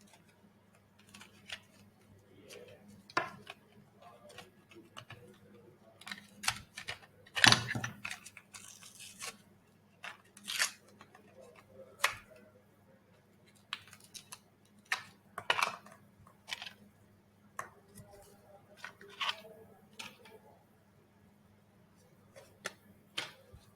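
Small plastic robot parts and tools being handled and fitted together by hand: scattered sharp clicks and short rustles, the loudest about seven and a half seconds in.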